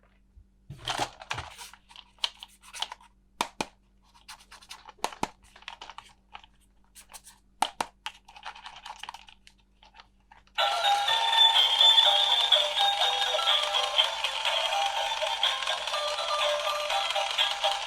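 Plastic toy pieces and packaging handled with scattered clicks and crinkles. About ten seconds in, a tinny electronic tune starts suddenly and keeps playing, the kind a battery-powered toy plays through its small speaker.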